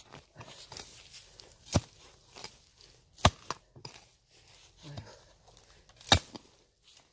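A hand digging tool striking and scraping into soil to dig out a wild bellflower root, with three loud sharp strikes spread through and lighter scrapes and dry-grass rustling between them.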